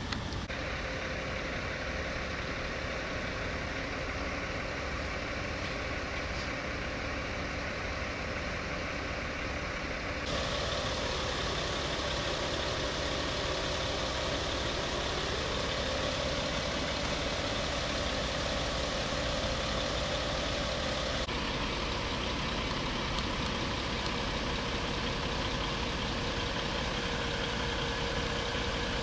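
Engines of parked emergency vehicles idling, a steady hum. The sound changes abruptly about ten seconds in and again about twenty-one seconds in.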